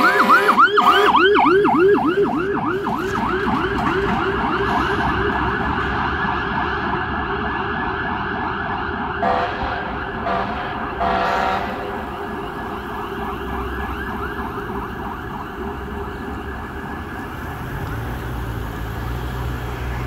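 Scania fire engine's siren on a fast yelp, fading as the truck drives away. About nine to eleven seconds in, three short blasts of its air horns cut in over the siren.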